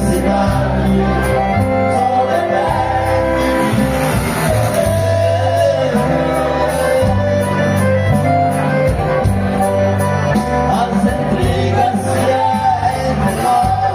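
Live band music led by an accordion, with bass notes and a steady drum beat, and a voice singing over it.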